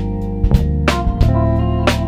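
Instrumental music: guitar over held bass notes, with a steady drum beat about twice a second.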